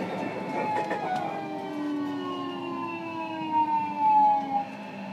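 Traction motors and inverter of a JR Kyushu 305 series electric train with Toshiba permanent-magnet synchronous motors, heard from inside the motor car: a whine of several tones falls steadily in pitch as the train slows. The whine cuts off about four and a half seconds in, leaving a low hum.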